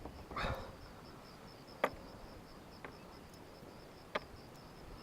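A short rustle, then a few sharp knocks or clicks, the loudest about two seconds in and another near four seconds, over a faint, steady, pulsing high buzz.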